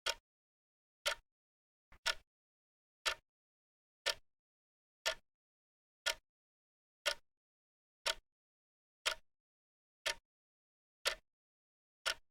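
Clock ticking steadily at about one tick a second, each tick a short sharp click with silence between.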